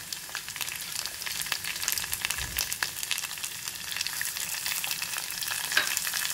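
Chopped dry fruits and raisins sizzling in hot ghee in a small pan, a steady fine crackle, with a wooden spatula stirring through them partway through.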